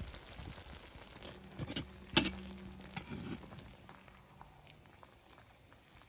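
Thick cream sauce with chicken and mushrooms bubbling and sizzling in a wide pan as a metal spatula stirs through it. A sharp knock of the spatula against the pan comes about two seconds in.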